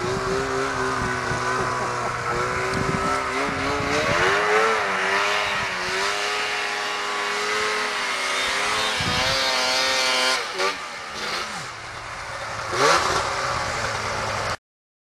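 Arctic Cat snowmobile engines running and revving, their pitch rising and falling as the sleds ride through the snow. The sound cuts off suddenly near the end.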